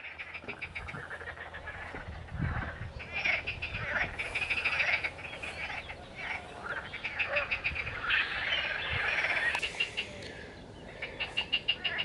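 A chorus of frogs calling from a reed-bed lake. Many calls overlap, each a quick rattling run of pulses, and the chorus goes on without a break.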